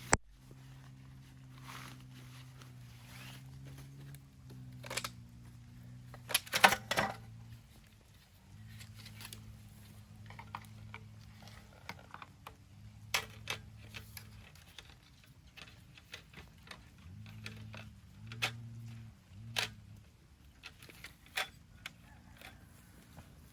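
Scattered clicks and knocks, as of things being handled, with a louder cluster about a third of the way in, over a low hum that stops and starts several times.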